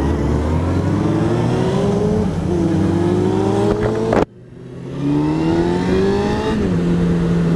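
Honda CBR600F inline-four motorcycle engine pulling away through the gears: the revs rise, drop at a gear change and rise again, then settle to a steady drone near the end. About halfway through the sound cuts out abruptly and swells back within a second.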